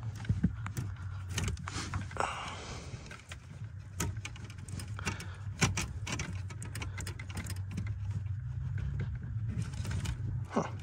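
Rustling and scattered sharp clicks of thin wires being worked by hand through a hole under a truck's dash. A steady low hum runs underneath.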